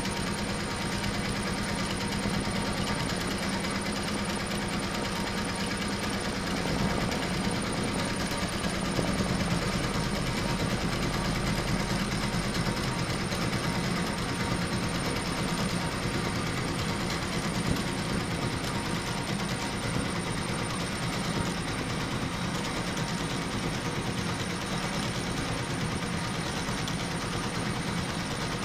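HSW 12-needle high-speed embroidery machine running steadily, stitching in a rapid, even rhythm of needle strokes.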